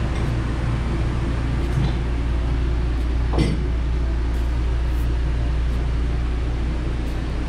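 Steady low hum of a rooftop air conditioner running, with a brief squeak about three and a half seconds in.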